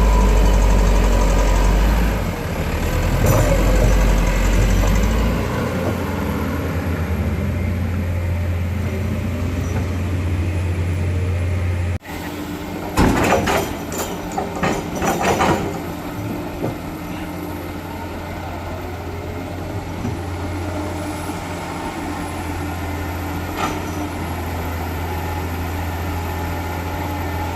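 Heavy diesel engines of an excavator and dump truck running steadily with a deep hum, heavier for the first five seconds. About halfway there is a sudden break, and shortly after a run of clanks and clatters lasts about three seconds.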